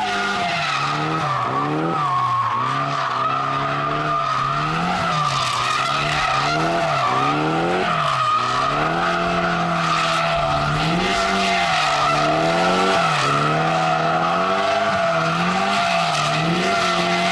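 Nissan Silvia S14 drifting in circles: its engine revs rise and fall about once a second as the throttle goes on and off, over a continuous tyre squeal.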